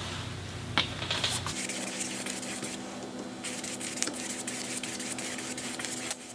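Paintbrush working acrylic paint, with a couple of light clicks about a second in, then soft scratchy strokes of the bristles across a canvas.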